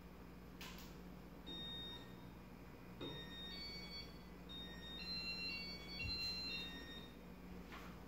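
Casablanca Metropolitain ceiling fan starting up and gathering speed, with a low steady motor hum. Over it, from about one and a half to seven seconds in, comes a string of short high-pitched beeps at changing pitches, with a soft thump near the end.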